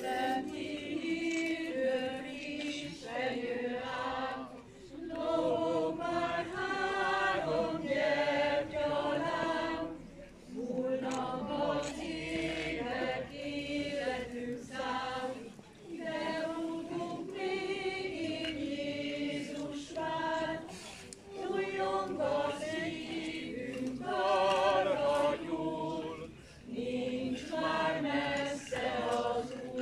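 A group of voices singing a hymn without accompaniment, line by line, with short breaks between phrases.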